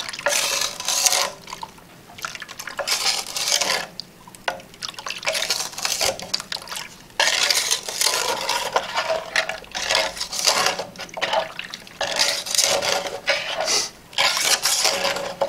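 A utensil stirring a pot of warm nocino, swishing and scraping against the pot in irregular strokes, each a second or so long, with short pauses between.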